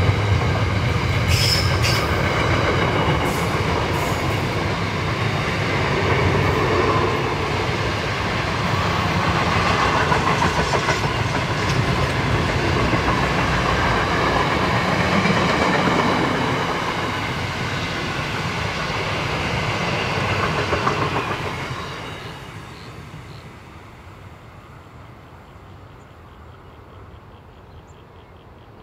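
Freight train wagons rolling steadily past on the mainline. About 21 seconds in the sound falls away quickly as the end of the train passes and it draws off.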